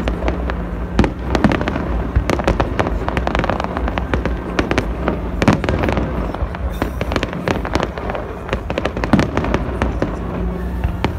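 Aerial fireworks going off in quick succession: a dense run of sharp bangs and crackles, several a second, with no let-up.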